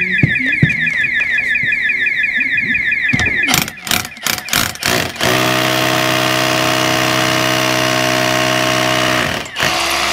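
An alarm sounds a fast, repeating sweeping tone for the first three seconds or so. Then a Milwaukee M18 Fuel cordless rotary hammer starts with a few short stop-start bursts, drills steadily into brick for about four seconds, and stops.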